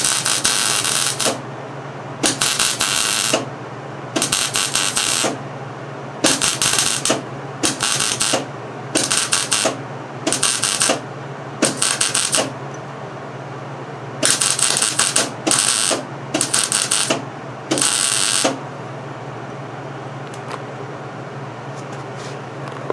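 Wire-feed welder laying short stitch welds on a steel baler rail: about a dozen bursts of crackling arc, each about a second long with short pauses between, over a steady low hum. The welding stops about 18 seconds in, leaving the hum.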